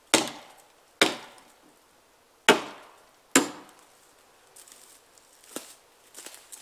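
Axe chopping into a dead downed log: four sharp strikes over the first three and a half seconds, each one dying away quickly. Fainter crackling and rustling of twigs and brush follows.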